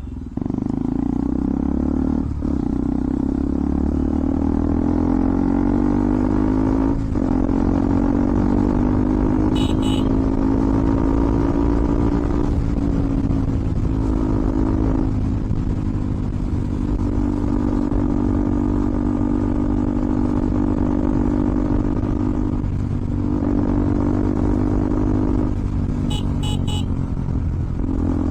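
KTM Duke 200's single-cylinder engine running under way through an Akrapovic aftermarket exhaust with the dB killer removed. The note rises and falls with the throttle, with short dips every few seconds where the throttle closes for a shift.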